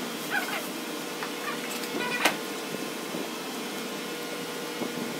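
Plastic packaging being torn open and handled: a black poly mailer ripped and a jersey in a clear plastic bag pulled out, giving scattered crinkles and rustles with a sharp crackle just after two seconds, over a steady background hum.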